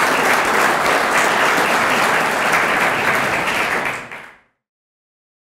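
Audience applauding steadily, fading out about four seconds in to complete silence.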